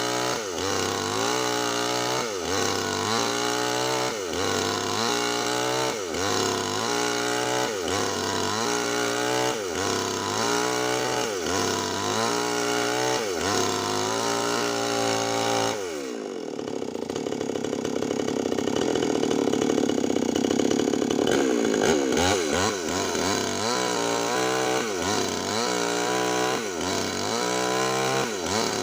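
Two-stroke chainsaw with a 25-inch bar ripping a Medang log lengthwise. Its engine note rises and falls in a cycle of roughly one and a half seconds as the cut loads and unloads it. From about the middle, for some six seconds, it runs steadier and louder in the cut, then returns to the rising-and-falling pattern.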